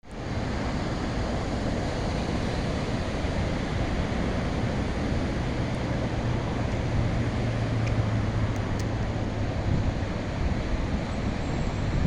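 Large ocean waves breaking as a steady rushing surf, with wind buffeting the microphone.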